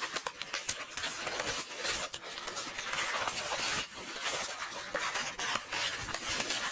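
Paper pages of a book rustling and being turned: a dense, continuous run of crisp rustles and small crackling clicks.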